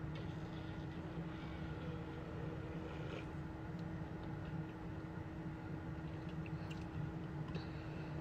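Steady low hum inside a car cabin with a constant tone running through it, as of the car's engine or fan running, with a few faint clicks.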